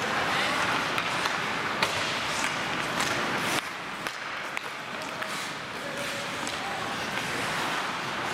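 Ice hockey rink ambience during play: a steady hiss of skates on the ice with several sharp clacks of sticks and puck, and faint voices in the arena.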